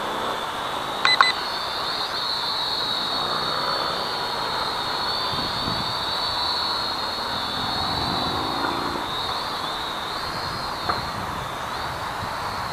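Syma X54HW toy quadcopter's propellers whining steadily at a high pitch, the pitch wavering slightly as it flies. Two short clicks about a second in.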